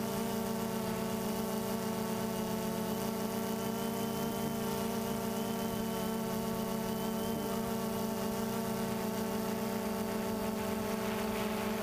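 DJI Phantom 2 quadcopter's brushless motors and propellers humming steadily in flight, picked up close by the camera slung beneath it.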